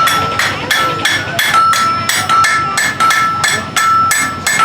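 Blacksmith's hammer striking iron on an anvil, a steady run of about three blows a second, with the anvil ringing after the blows.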